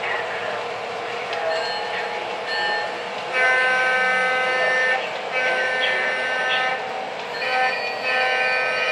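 Lionel LionChief RS3 diesel model locomotive running on O gauge track, its onboard sound blowing the horn about a third of the way in. The horn goes long, long, short, long: the grade-crossing signal.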